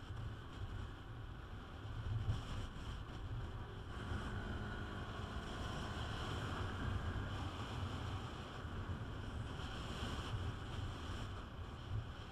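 Wind rushing and buffeting over the microphone of a riding Peugeot Metropolis 400 scooter with no windshield, over the scooter's running engine and road noise.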